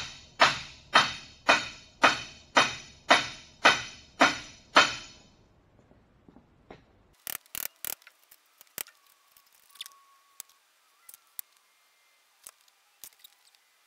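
Hammer blows on a long cam bearing driver bar, seating a cam bearing in a Cummins Big Cam IV engine block: about two ringing metallic strikes a second, some nine in all, stopping about five seconds in. After that come a few light clicks and taps.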